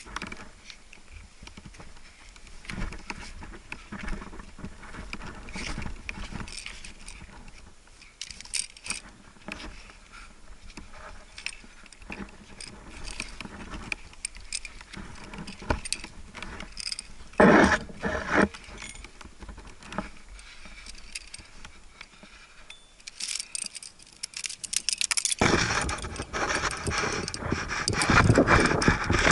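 Climbing gear on a harness, carabiners and cams, clinking and jangling, with scattered scrapes and knocks as a climber moves up a granite crack. About two-thirds of the way through there is a louder clatter, and near the end a loud, steady rush of noise takes over.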